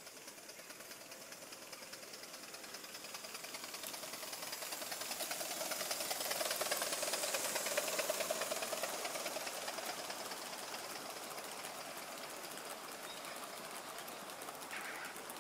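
Gauge one live steam QJ locomotive and its train running past on a garden railway track: a rapid mechanical clatter of fast ticks that grows louder to a peak about halfway through, then fades away.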